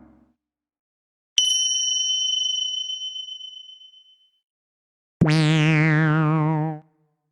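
A small bell is struck once and rings out, fading over about two and a half seconds. About a second later comes a cartoon boing sound effect, a wobbling spring-like twang with a falling sweep, which lasts about a second and a half.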